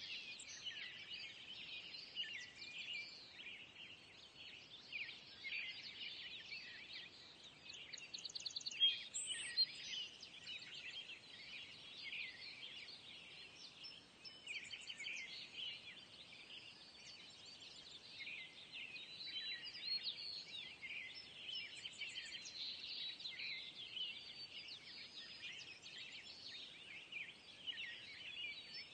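Many small birds chirping and twittering without a break, with a few quick high trills now and then: a faint birdsong ambience.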